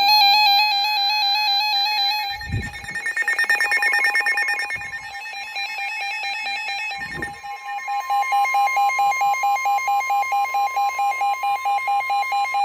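Several NOAA weather radios sounding their alert alarms: overlapping, rapidly warbling electronic beeps that pulse a few times a second. About eight seconds in, the steady 1050 Hz NOAA Weather Radio warning tone joins them. Two short low thumps come about two and a half and seven seconds in.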